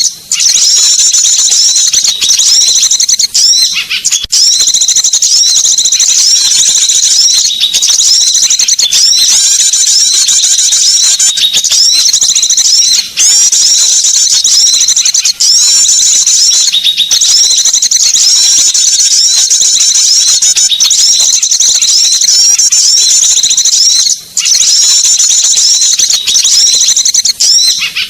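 Bird-lure recording of small songbirds calling: a dense, unbroken chatter of high, fast chirps and trills that repeats over and over, with a few short breaks, around 13 and 24 seconds in.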